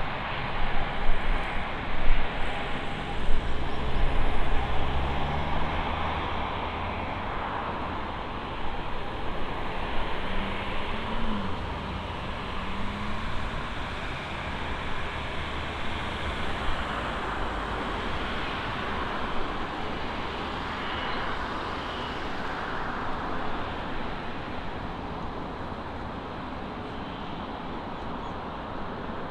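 Steady engine and traffic roar, loudest in the first six seconds, with a brief rising engine tone about ten seconds in.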